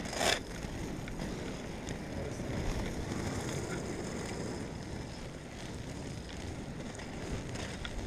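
Inline skate wheels rolling steadily on asphalt, with wind rushing over the microphone and a brief scuff at the very start.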